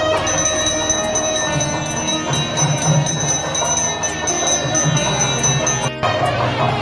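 Temple music with a bell ringing throughout, two high ringing tones held steady over low beats. The sound breaks off briefly about six seconds in.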